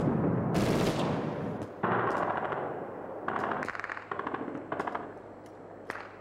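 Automatic gunfire in bursts of rapid shots: a long burst at the start, then several shorter bursts, growing fainter toward the end.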